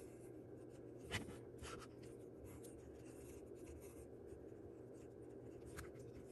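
Faint rubbing and light ticks of yarn being wrapped around the pegs of a wooden rectangular sock loom, with a sharper tick about a second in.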